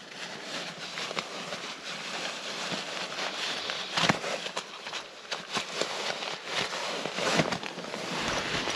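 Rustling and light crackling of nylon tent fabric and gear as someone moves about inside the tent, with many small ticks and a sharper knock about four seconds in.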